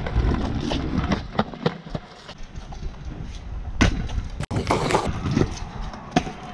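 Stunt kick scooter rolling over concrete with a low rumble from its wheels, and sharp clacks and knocks of the scooter striking the pavement. The loudest knock comes about four seconds in and is followed by a brief scraping burst.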